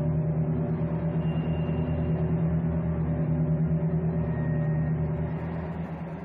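Low, steady droning rumble of a soundtrack drone, with several held tones and a fast, even pulsing of about six beats a second, fading away near the end.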